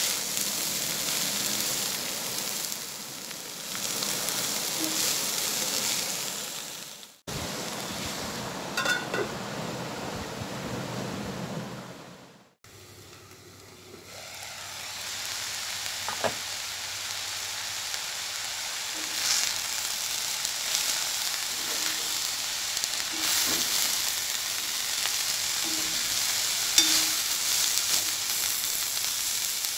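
Chopped banana stem sizzling as it stir-fries in a black kadai, with a spatula stirring and scraping through it and a few light clicks. The sizzle cuts off sharply twice about a third of the way in, then is quieter for a few seconds before it builds back up.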